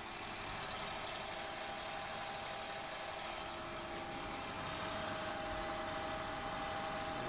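High-pressure water-jetting pump unit, set to about 1000 bar, running steadily: a constant whine over machine noise.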